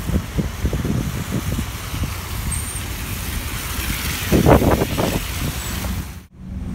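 Double-decker bus engine running as the bus pulls in to the stop and stands at the kerb, under a steady low rumble of street traffic, with gusts of wind buffeting the microphone about four seconds in. The sound drops out abruptly near the end.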